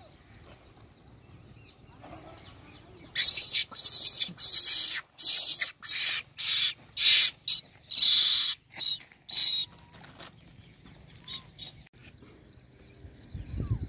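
Macaque monkeys giving a run of about a dozen harsh, shrill screeches in quick succession, starting about three seconds in and lasting some seven seconds.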